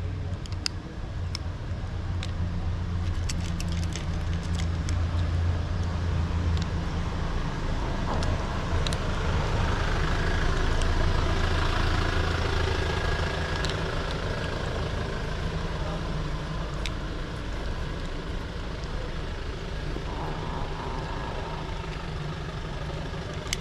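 Steady low rumble of a running motor-vehicle engine, swelling about ten seconds in and easing off again. Light crisp clicks in the first few seconds come from a kitten crunching dry cat food.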